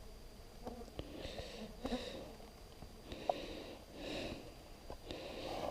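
A man sniffing several times in short, hissy breaths through the nose, with a few faint clicks between them.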